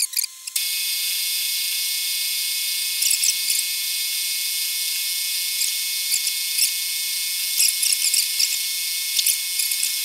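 Milling machine end mill cutting a metal block: a steady high spindle whine, with brief squeals of the cutter in the cut a few times.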